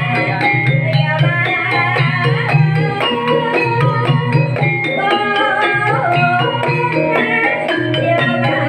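Banyumasan gamelan music accompanying an ebeg dance: quick struck metallophone notes over steady hand-drumming, with a voice singing.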